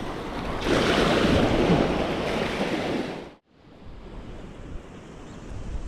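Ocean surf washing over the reef, with wind buffeting the microphone. A louder wash of water comes about a second in and lasts a couple of seconds; the sound then cuts out abruptly for a moment and returns quieter.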